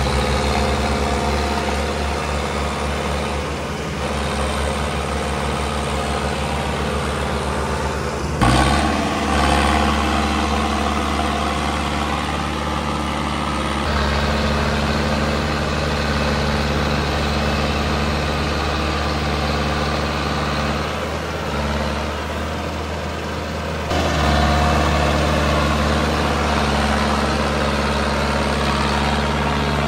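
Mahindra tractor diesel engines running steadily while working through deep mud, with sudden changes in the sound about 8 s, 14 s and 24 s in where different takes are cut together.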